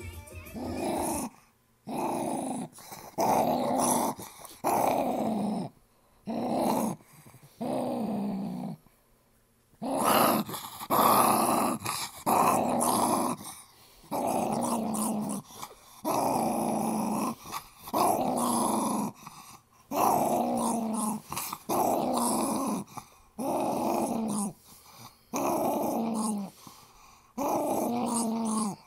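Small black dog play-growling over and over while guarding a teddy bear from a person's hand, each growl about a second long with a brief breath between, and a short pause about nine seconds in.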